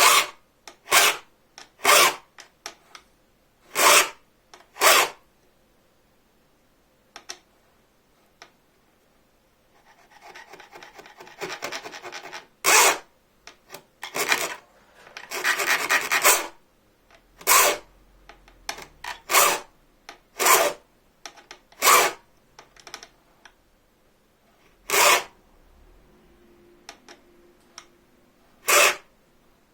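Hand file cutting teeth into a bow-saw blade: separate strokes about half a second each with pauses between, and a longer run of rasping partway through.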